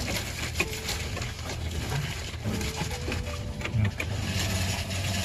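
Steady low mechanical hum, with scattered light clicks and taps of wires and metal parts being handled inside a freezer cabinet.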